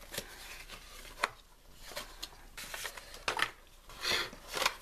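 Small cardboard box being handled and a speed cube slid out of it: scattered scrapes and taps of card, a sharp click about a second in, and louder rustling near the end.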